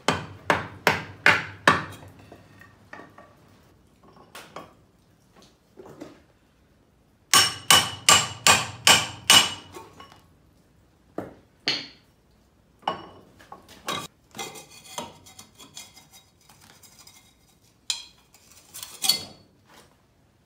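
Hammer blows on metal, knocking cylinder sleeves out of a Cockshutt 40 tractor's six-cylinder engine block: a quick run of about five strikes at the start, a second run of about six ringing strikes midway, then scattered single clanks.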